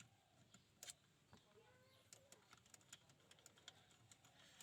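Near silence with faint, irregular light clicks.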